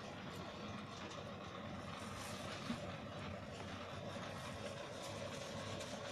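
Steady mechanical hum and noise with a faint constant tone, plus a few small handling clicks and one short knock about two and a half seconds in.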